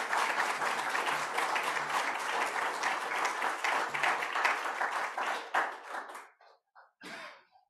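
Audience applauding, many hands clapping together, tapering off and dying away about six seconds in.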